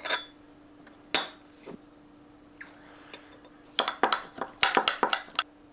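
Metal spoon clinking and scraping against a small glass cup while scooping whole-grain mustard. There are a few separate clinks, then a quick run of clinks near the end.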